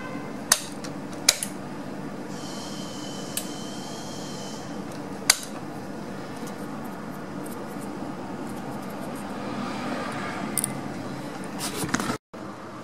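Honda CBR250R idle air control valve, a stepper-motor valve held out of the throttle body on its harness, giving a steady high whine for about two seconds as its plunger moves. Several sharp clicks come around it, over a steady low hum.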